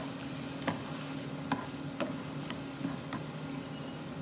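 Onions and dry red chilies sizzling in oil in a nonstick frying pan while a spatula stirs them, with sharp clicks of the spatula against the pan every half second to second. A steady low hum runs underneath.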